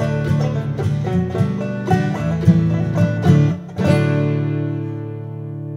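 Bluegrass music on banjo, acoustic guitars and mandolin, with quick plucked notes that end on a final chord about four seconds in, left ringing and slowly fading.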